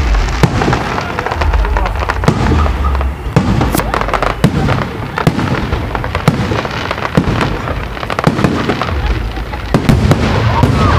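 Fireworks display: shells bursting in a rapid, irregular series of bangs and crackles over a continuous low rumble.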